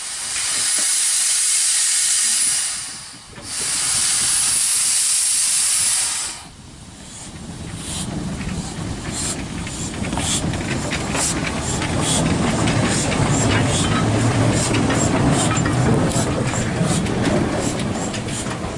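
Narrow gauge steam tank locomotive letting off two long loud hisses of steam, each about two and a half seconds, then pulling away: its exhaust chuffs come quicker and quicker over a low rumble of wheels on rail.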